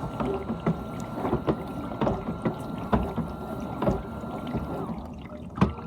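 GE dishwasher running its wash pump with a steady whine, water spraying and splashing irregularly inside the tub. The pump cuts out briefly near the end and then starts again.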